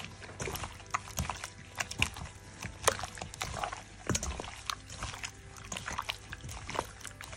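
Gloved hand kneading chicken pieces in a wet chilli marinade in a stainless steel bowl: irregular squelches, with small clicks and crinkles of the plastic glove against meat and bowl.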